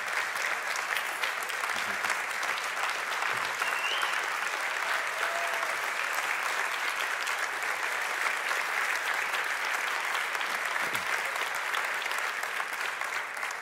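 Church congregation applauding steadily.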